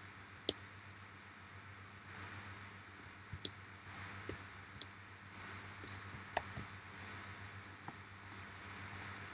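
Scattered, irregularly spaced clicks of a computer mouse and keyboard as edge loops are selected, over a faint steady low hum.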